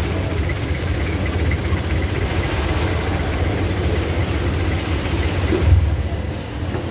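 Diesel engine of a passenger jeepney idling with a steady low rumble, heard from inside the cab. It swells briefly louder just before six seconds in.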